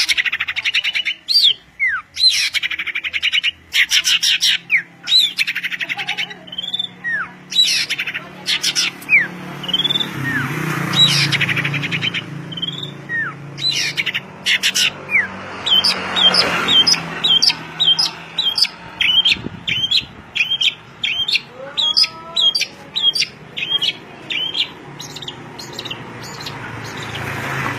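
Songbird singing: rapid chattering trills and short falling whistles, then a long run of quick repeated notes about two a second.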